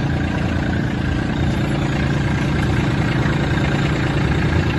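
Kubota B2650 compact tractor's three-cylinder diesel engine idling steadily.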